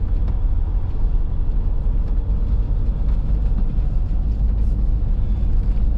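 Motorhome on the move, heard from inside the cab: a steady low engine and road rumble.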